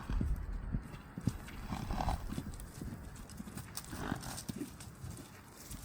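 Horses' hooves thudding unevenly on the ground as they run and buck.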